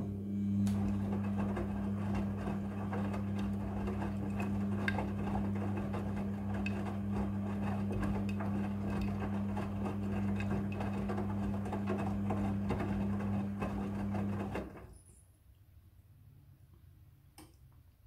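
Midea front-loading washing machine tumbling a wash load: a steady motor hum under the soft knocks and swishes of clothes falling in the drum. It stops about fifteen seconds in as the drum comes to rest.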